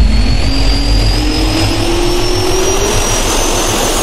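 Jet turbine spool-up sound effect: a whine rising slowly in pitch over a deep rumble and rushing air noise.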